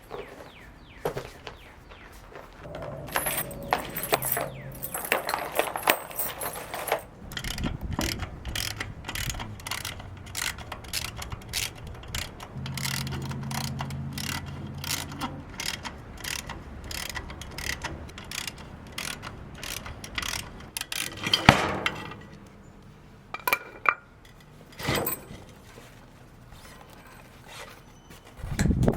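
Metal hand tools clinking and scraping on metal, with a long run of quick, evenly spaced clicks in the middle and a few sharper knocks near the end.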